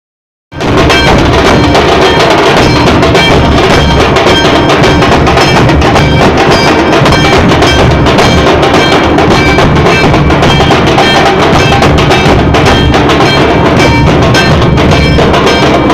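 Loud music with dense, steady drumming that starts about half a second in.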